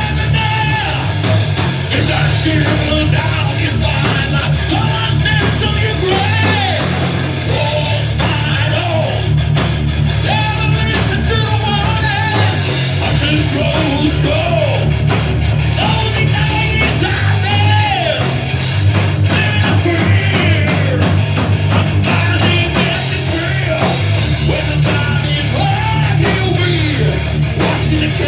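Live rock band playing loud and without a break, with a singer's vocals throughout.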